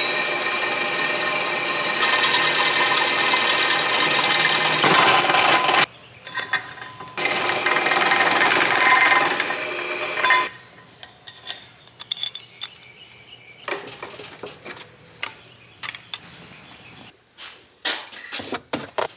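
A power tool's motor running steadily for about six seconds, stopping briefly, then running about three seconds more. After it stops, scattered clicks and knocks of tools and parts being handled.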